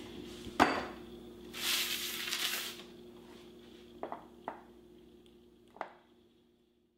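Kitchen handling sounds: a sharp clank of a metal baking sheet being set down, then a hiss of about a second, then a few light knocks on the counter as dough is handled, over a faint steady hum.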